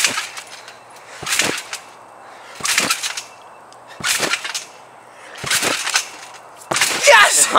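Trampoline bounces: the mat and springs give a short sharp swish with each bounce, six in all, about a second and a half apart, the last and loudest as a flip is thrown and landed.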